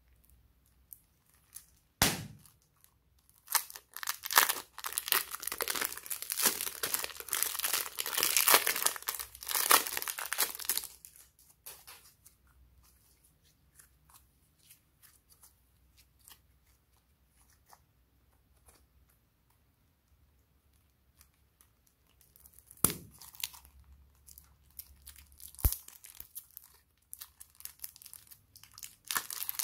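Slime being handled and squeezed, making dense crackling and popping in spells, with a sharp tap about two seconds in and twice more later on.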